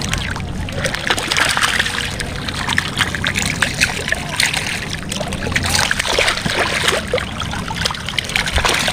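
Water splashing and dripping in quick, irregular small strokes as a large Nile tilapia is put into a mesh keep net standing in shallow water and the wet net is handled.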